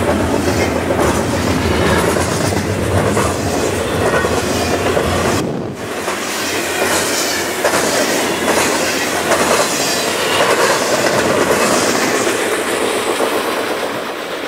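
Double-stack intermodal container cars of a freight train rolling past, with a steady rumble and repeated clicking of wheels over the rail joints. The sound fades near the end as the last car goes by.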